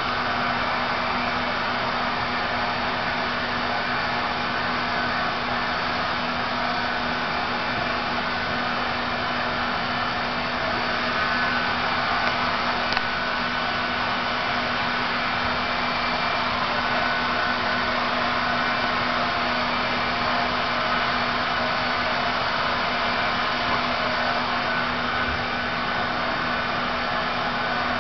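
Steady rushing noise with a constant low hum, unchanging, like a fan or blower.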